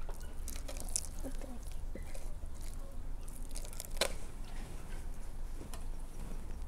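Hands handling marinated, masala-coated fish on a platter: faint wet squishes and small taps, with one sharper click about four seconds in.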